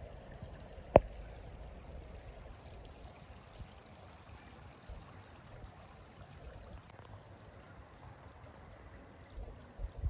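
Shallow creek water flowing over a stony bed, a steady soft rush. A single sharp click about a second in, and a few low thumps near the end.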